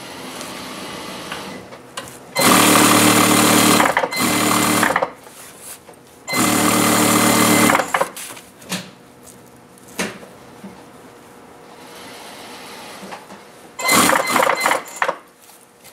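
Industrial lockstitch sewing machine stitching a side seam, starting and stopping: three runs of about one to one and a half seconds in the first half, then a shorter, choppier run near the end, with quieter fabric handling between runs.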